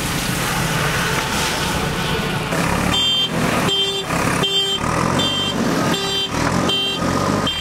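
A backhoe loader's diesel engine running, joined about three seconds in by its reversing alarm beeping repeatedly.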